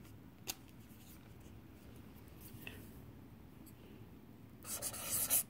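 Marker pen on paper: a single click about half a second in, then a short scratchy stroke near the end, the loudest sound.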